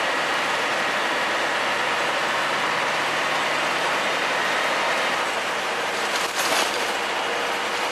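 Diesel engine of a three-axle double-decker bus idling at a standstill, a steady mechanical running sound with a faint high whine. A short burst of hissing noise comes about six seconds in.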